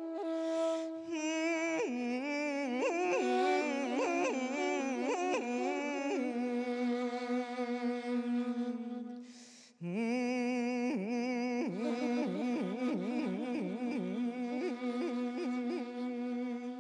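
Background music: a steady drone with a wavering, ornamented melody over it. It breaks off briefly about ten seconds in, then resumes.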